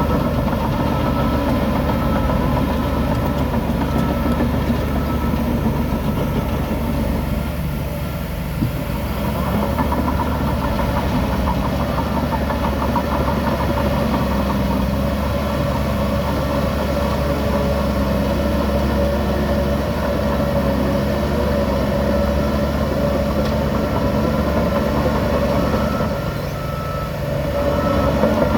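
Heavy diesel engine running steadily, with a brief dip in loudness about eight seconds in and another near the end.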